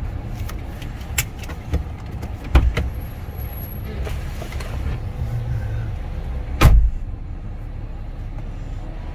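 A Jeep driving with a steady low rumble of engine and road, broken by several sharp knocks and bumps; the loudest thump comes about two-thirds of the way in.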